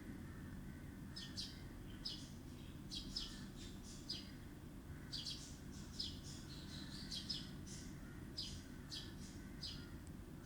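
Sparrow nestlings chirping in a bird house: many short, high chirps in quick irregular runs, over a steady low background hum.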